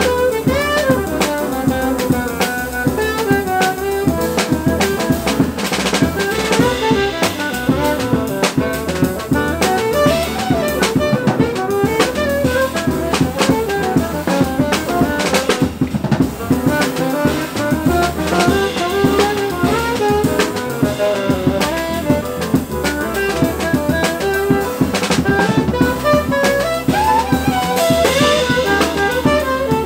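Live jazz quartet playing: saxophone carrying the melody over piano, upright double bass and a drum kit with busy cymbal and drum work.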